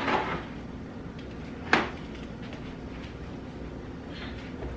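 Two sharp metal clanks as hot baking sheets and the oven are handled on a range top: one right at the start and a louder one nearly two seconds in, over a steady low hum.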